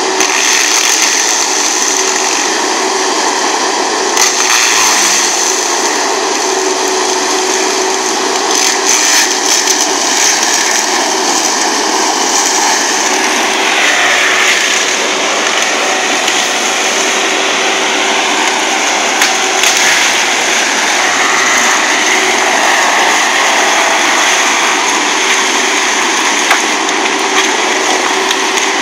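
Galotrax 300 tracked forestry mulcher running under load, its rotor shredding brush and branches: loud steady running with a high whine, broken now and then by sharp cracks of wood being smashed.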